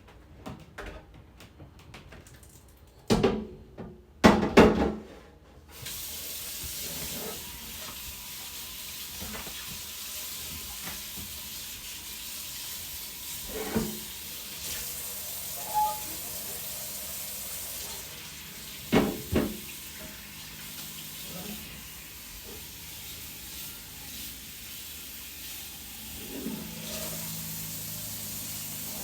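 Two loud knocks, then a kitchen tap turned on about six seconds in, water running steadily into a sink with a few clunks of things being handled.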